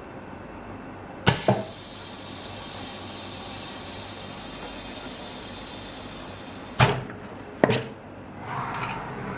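OCA vacuum laminator: a sharp click, then a steady hiss of air for about five seconds that stops with another click, followed by a further click a second later as the laminating cycle ends.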